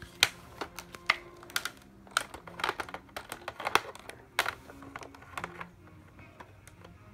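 Hard plastic parts of a Nerf Modulus blaster and its accessories being handled and fitted together: a string of irregular sharp clicks and knocks.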